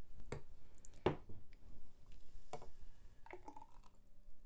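Thick smoothie pouring from a plastic blender jug into a glass, heard as a few separate glugs and knocks of jug on glass, the loudest about a second in.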